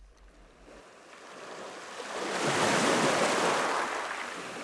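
Surf sound effect: one wave rushing in, swelling over about two seconds, then washing away and fading.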